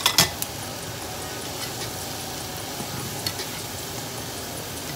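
Sliced bell peppers and onion sizzling in a frying pan. A metal spoon clacks against the pan a few times at the start and once more about three seconds in as they are stirred.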